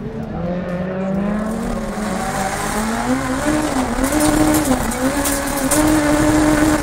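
Alfa Romeo MiTo rallycross car racing hard, heard from inside the car: the engine's pitch climbs, holds and drops several times as it works up and down through the gears. A crackling hiss rides over it in the second half.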